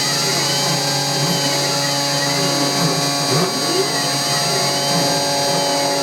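Small CNC machine running while machining a miniature train wheel: a steady high whine over several held tones, with tones that rise and fall in pitch every second or two as the machine's axis motors speed up and slow down.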